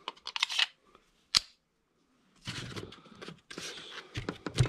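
Handling a CZ 97 B pistol: a quick run of clicks and then a single sharp click as a magazine goes into the grip. After that, scraping, rustling and light knocks as the pistol is laid into its foam-lined hard plastic case.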